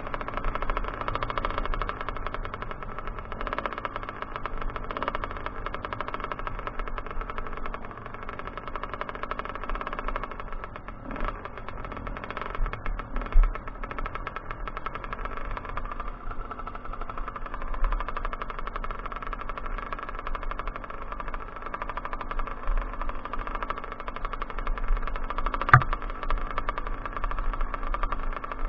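Kawasaki KX 125 two-stroke motocross bike engine running under way, mostly at a steady pitch that rises and falls a few times with the throttle. A single sharp knock sounds near the end.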